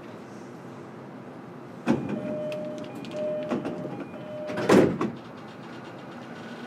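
Passenger sliding doors of a JR East E233 series electric train closing. A clunk about two seconds in is followed by a door chime repeated three times, and the doors shut with a loud thud near the end.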